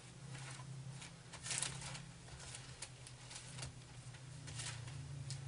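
Soft, scattered paper rustles as the thin pages of a Bible are leafed through, over a steady low hum.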